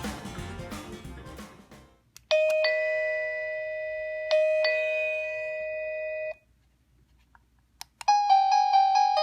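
Background music fades out. Then, after a click, a wireless plug-in digital doorbell chime plays a ding-dong: bell-like electronic tones, struck twice and held, that stop after about four seconds. After a short pause and another click, a different chime melody with quickly stepping notes begins near the end.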